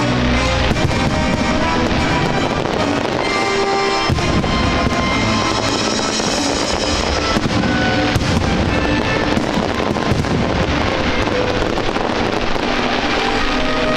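Aerial fireworks bursting and crackling over music of held, sustained notes, with sharp bangs standing out now and then, for example about four and eight seconds in.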